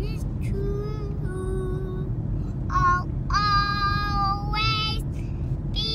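A young child singing a slow song, with several long held notes, over the steady low rumble of a car cabin.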